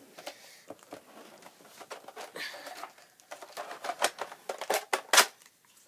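Irregular clicks and short rustles, like hands working an object at close range, with the loudest sharp click a little after five seconds in.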